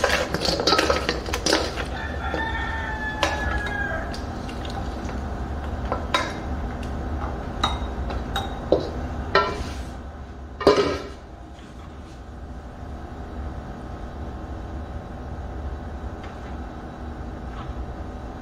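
Wooden spoon knocking and scraping against a stainless steel mixing bowl and a ceramic bowl as sauced cauliflower pieces are spooned out, in scattered clicks and knocks with the loudest just past halfway; quieter after that.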